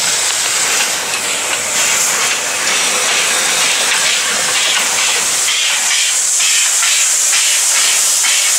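Tkt48 steam tank locomotive moving slowly past at close range, its steam hissing loudly and steadily, with a faint rhythmic beat of about two pulses a second from the running gear in the second half.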